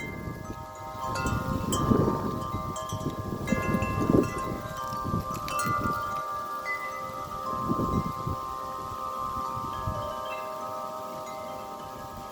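Wind chimes ringing in strong, gusty wind: several notes struck at different moments and left to ring on, overlapping. Gusts of wind buffet the microphone, strongest in the first half.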